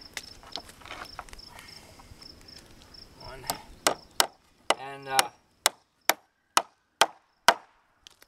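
Hammer driving a nail through wooden boards: about ten sharp blows, roughly two a second, starting about three and a half seconds in.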